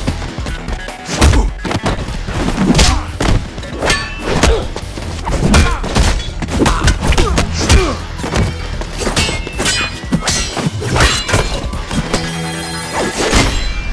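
Fight-scene sound effects: a fast, irregular run of punch and kick impacts over background music, which settles into a steady held chord near the end.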